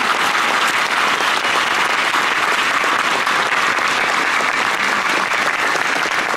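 Large crowd applauding, a steady, dense clapping of many hands that holds at one level throughout.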